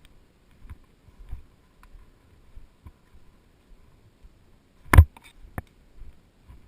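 Two sharp shots from an airsoft gun about five seconds in, half a second apart, the first much louder, amid faint soft knocks of movement.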